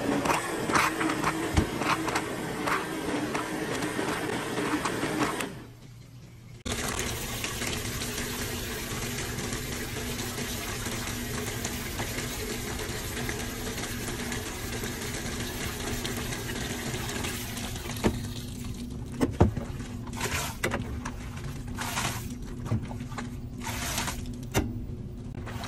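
Top-loading high-efficiency washing machine filling: water gushing through the detergent dispenser into the drum over a steady machine hum. The sound cuts out briefly about six seconds in, and a few light clicks come near the end.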